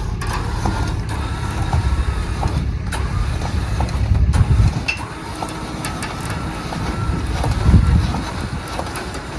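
Truck engine running at low speed close by as the truck is moved, a steady low rumble that swells twice, with scattered clicks and knocks.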